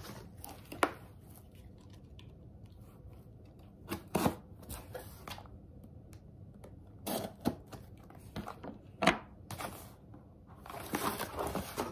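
Packing tape on a cardboard shipping box being cut and torn open, heard as scattered short scrapes, clicks and tearing sounds, then a longer stretch of cardboard rustling near the end as the box flaps are opened.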